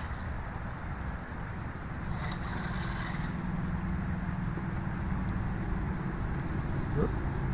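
A motor running with a steady low hum that grows gradually louder.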